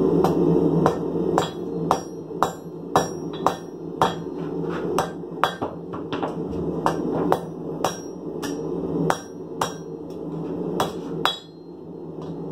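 Hand hammer striking a red-hot file on a steel anvil, about two blows a second, each with a short metallic ring, while the file is forged into a kiridashi blade. The blows stop about a second before the end, over a steady low hum.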